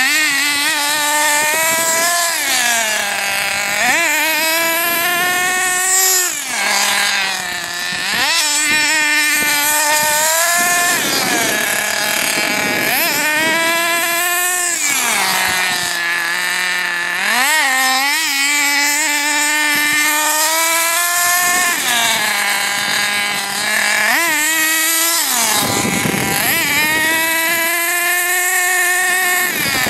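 Nitro RC buggy's small two-stroke glow engine being warmed up while driven, revving up and down over and over in a high buzz, its pitch climbing and dropping every few seconds.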